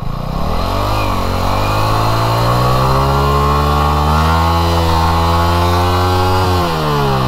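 Yamaha R15 V3's single-cylinder engine revved hard and held at high revs for several seconds, climbing slowly and dropping away near the end, as the rear tyre is spun in the mud to dig a rut.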